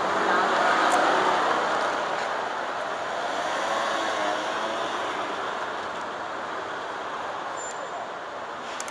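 Street traffic with a vehicle passing close, loudest about a second in and then dying away into steady traffic noise.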